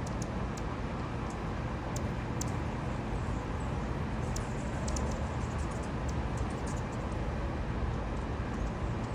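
Steady outdoor background noise: a low hum under a rushing sound, with many short high ticks or chirps scattered through it.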